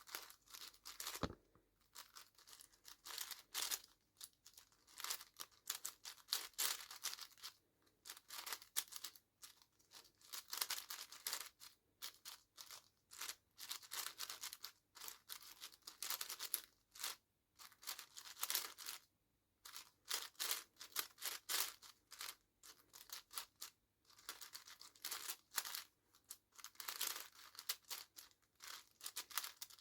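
Plastic speedcube being turned fast through a solve: rapid runs of clacking and scraping layer turns, broken by short pauses.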